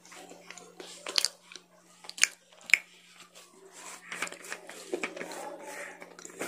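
A person chewing crunchy food close to the microphone, with three sharp crunches about a second, two seconds and nearly three seconds in, and softer chewing between. A faint steady hum runs underneath.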